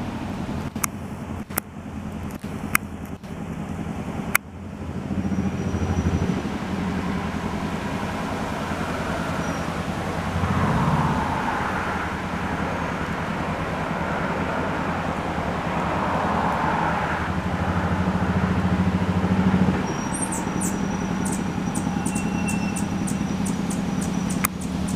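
Road traffic rumbling steadily in the background. A few sharp clicks come in the first few seconds, and from about twenty seconds in there is a run of fast, evenly spaced high ticks with a thin high tone.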